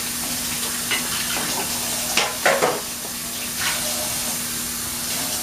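Spaghetti and ground-beef sauce sizzling in a pan as it is stirred, with a few short scraping strokes about two to three seconds in.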